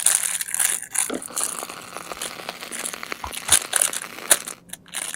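Packaging crinkling and rustling close to the microphone as a toy set is unwrapped, with scattered sharp clicks, the loudest two a little past the middle.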